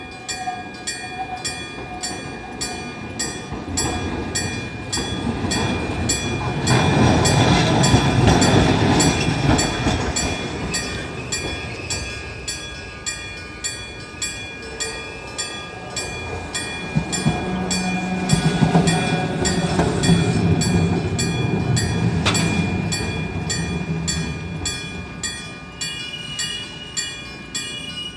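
Electromechanical level-crossing bell (hammer-struck gong type) clanging steadily, about two strikes a second. Two trains rumble past over the crossing, the first about six seconds in and louder, the second from about seventeen seconds in.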